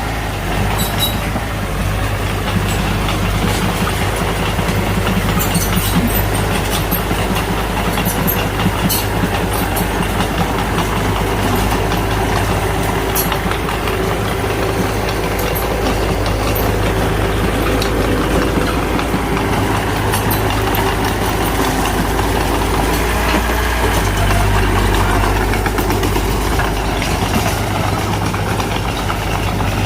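Mitsubishi BD2F bulldozer's diesel engine running steadily, with scattered sharp metallic clicks and clanks from its tracks and blade, most of them in the first half.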